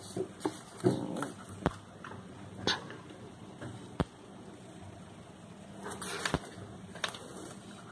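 Scattered light clicks and knocks with soft rustling as paper cutouts and a hand-held phone are moved about on a desk, with a busier patch of handling near the end.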